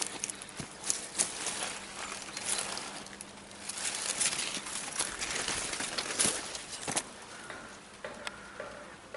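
Dry corn leaves and stalks rustling and crackling as someone walks through a cornfield, pushing through the plants and stepping on dry litter. The crackles are dense for about seven seconds, then thin out.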